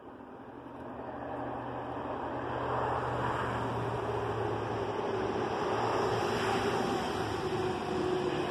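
A steady machine hum with a rushing noise, building up over the first three seconds and then holding level.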